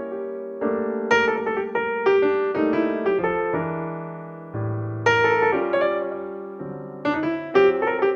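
Background music: solo piano playing a gentle melody over sustained chords, notes struck and left to ring.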